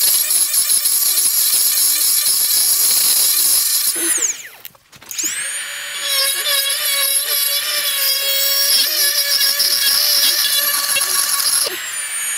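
Electric straight grinder with a burr whining at high speed as it cuts into the cast-iron 1G-FE engine block, widening the oil-filter passage for better lubrication. About four seconds in it winds down and goes briefly quiet, then spins back up and cuts steadily again, easing off near the end.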